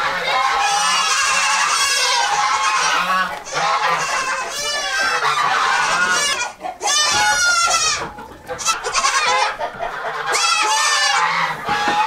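A flock of chickens squawking and clucking, many calls overlapping, with a few brief lulls.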